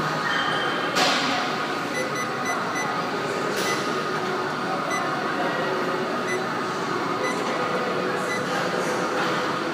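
Gym room ambience: a steady, noisy hum, with a sharp clank about a second in and another about three and a half seconds in.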